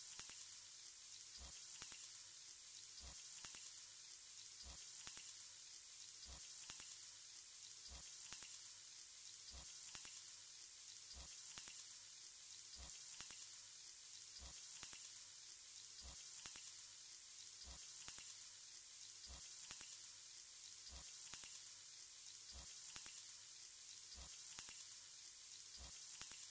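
Chicken pieces frying in hot oil in a pot, a steady quiet sizzle, with faint low thumps repeating about every second and a half.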